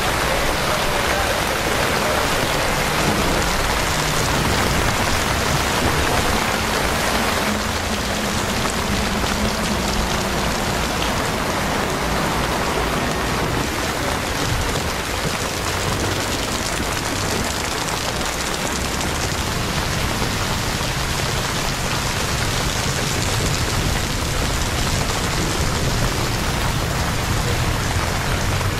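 Steady heavy rain falling on a wet street, an even hiss with no breaks.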